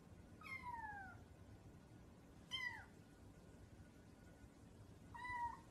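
A kitten meowing three times: two high mews falling in pitch, the second one short, then a flatter mew near the end.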